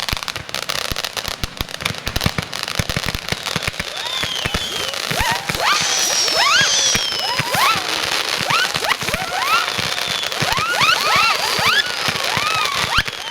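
Fireworks display: a dense crackling of many small reports, then from about four seconds in, many overlapping whistling effects, each sliding up and then down in pitch.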